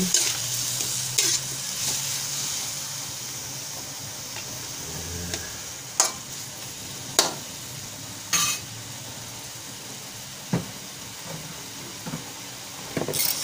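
Chicken pieces sizzling in hot oil in a metal wok while a spatula stirs them; the sizzle eases after the first few seconds. About five sharp knocks against the pan in the second half.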